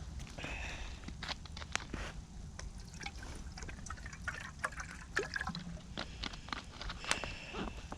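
Campfire crackling with irregular small pops and clicks, over a steady low rush that sounds like trickling water.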